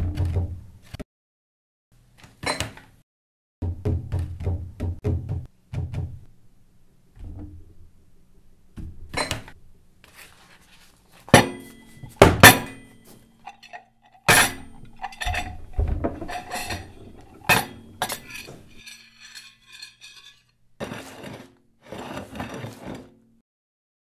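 Irregular clinks and knocks, some sharp and some low thumps, with short silences between.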